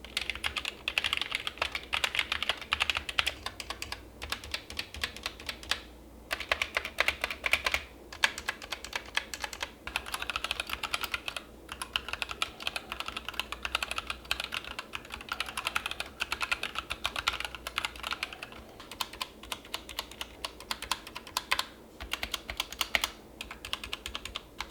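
Typing on an Asceny One 60% mechanical keyboard with Gateron optical brown switches and PBT keycaps: a rapid, steady stream of keystrokes, broken by a few short pauses.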